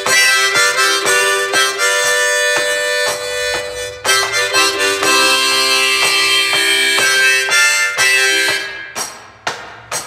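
Background music with a steady, chugging rhythm of chords. It fades out near the end, finishing with a few short chords that die away.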